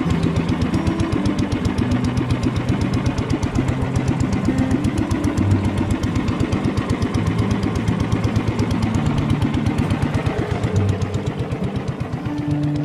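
Engine of a small wooden motor boat running steadily underway, a fast, even pulse of exhaust beats.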